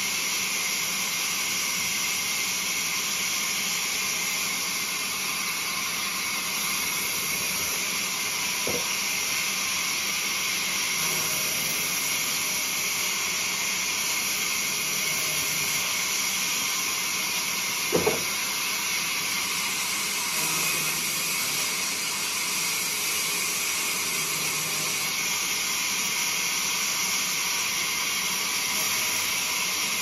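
Band saw cutting lengthwise through a log: a steady high hiss of the blade running in the wood, with one short sharp knock a little past halfway.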